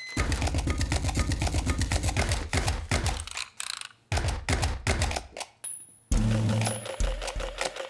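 Rhythmic percussion music played on bank office equipment: a fast run of even mechanical clicking, then a few heavy thuds, then a held low bass note under a beat near the end.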